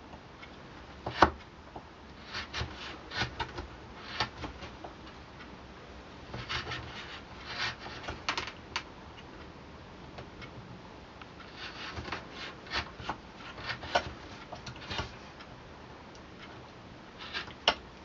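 Small knife paring shavings off the wooden tenon of a walking-stick shank: irregular short scrapes and clicks, the sharpest about a second in. The wood is being trimmed where it touches the antler handle so that the joint fits.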